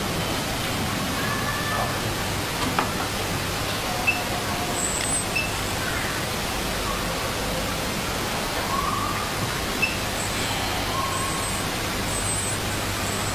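Steady hiss with a constant low hum underneath, with a few faint short high chirps and small clicks scattered through.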